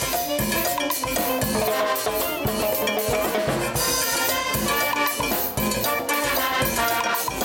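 A brass band (banda) playing live: horns including tubas, a sousaphone, trumpets and saxophones carry the tune over a drum kit, congas and timbales keeping a steady Latin dance beat.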